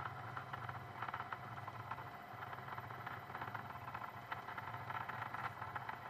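2M2 Tank 2 CNC key cutting machine running as its tracer probe scans the tracks of a laser-cut key: a steady low motor hum that drops out briefly about two seconds in, with faint ticking over it.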